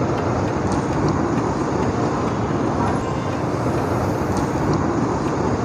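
Steady background din of street traffic, an even rumble and hiss with no distinct events.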